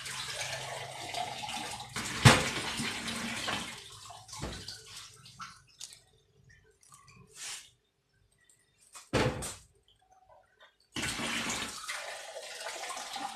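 Water being poured from a steel jug into a clay pot of chana dal, splashing in stretches with a quiet gap in the middle. Two sharp knocks come through, about two seconds in and about nine seconds in.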